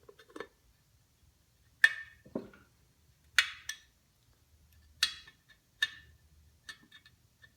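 Sharp metallic clinks, about five spaced a second or two apart, each with a brief ring: tools and small parts knocking against a drill press head as its switch plate is taken off.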